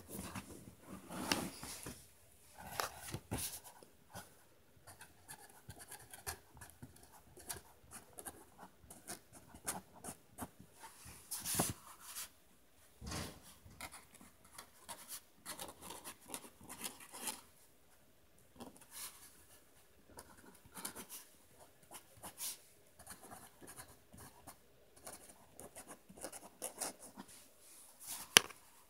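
Marker pen writing on paper: irregular, short scratching strokes of the tip across the sheet, with one sharp click near the end.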